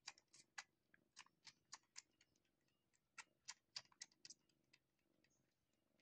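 Kitten suckling at a nursing cat's teat: faint wet clicks about four a second, in two runs with a short pause between.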